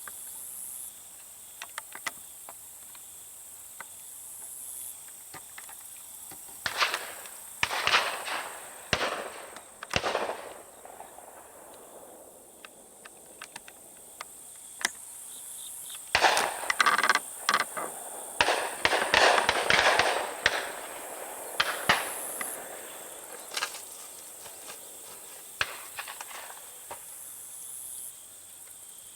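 Shotgun shots from dove hunters around the field, some single and some in quick strings of several, each with a short echo. A steady high insect drone runs underneath.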